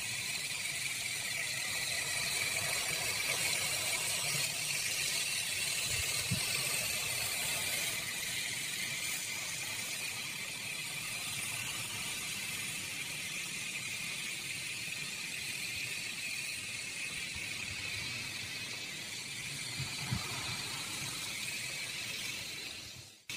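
Steady high-pitched whine of the electric motors and fixed-pitch coaxial rotors of a quarter-scale model helicopter, a little louder in the first several seconds. The sound cuts off abruptly just before the end.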